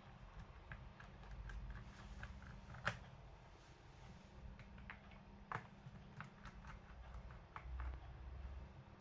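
Scattered light clicks and taps from handling a Dell Latitude E5440 laptop while its bottom cover is being opened, with one sharper click about three seconds in and another a little before six seconds, over a low handling rumble.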